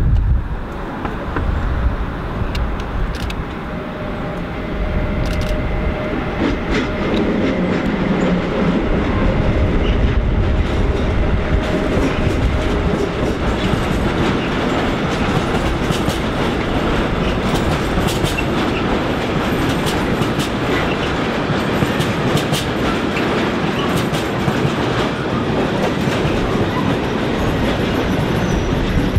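A freight train hauled by an electric locomotive rolls past close by. Its empty flat wagons clatter steadily, with rapid wheel clicks over rail joints and points. The sound grows louder about four seconds in as the train reaches the listener, then holds steady.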